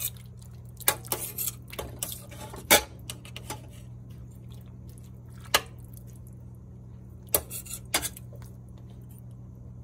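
A metal ladle knocking and clinking against the sides of a stainless steel soup pot as it stirs the broth, in scattered separate strikes, over a steady low hum.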